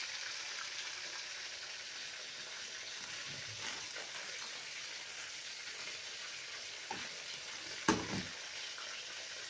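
Chicken pieces frying in shallow oil in a pan: a steady sizzle. A small click comes just before seven seconds in, and a sharp knock about eight seconds in.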